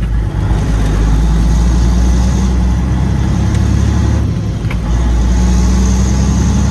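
Diesel engine of a Peterbilt semi truck pulling under load, heard from the cab with the windows open. It dips briefly about two-thirds of the way through, then pulls steadily again.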